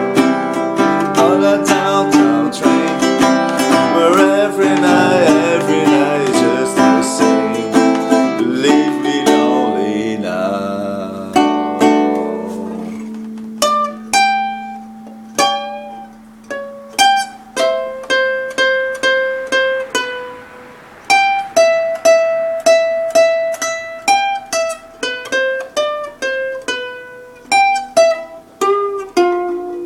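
Strummed acoustic plucked-string accompaniment with a singing voice trailing off. About halfway through it gives way to slow single picked notes, each ringing out, as an instrumental melody.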